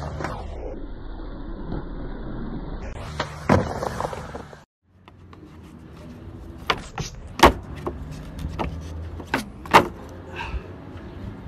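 Skateboard wheels rolling on a Skatelite-surfaced wooden mini ramp, with one sharp clack. After a brief cut, a skateboard makes several sharp clacks as its tail and wheels strike concrete during flatground tricks.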